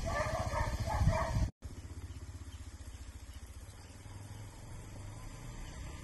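Side-by-side utility vehicle's engine idling while a dog barks repeatedly over it. After an abrupt cut about a second and a half in, a quieter, steady low engine drone.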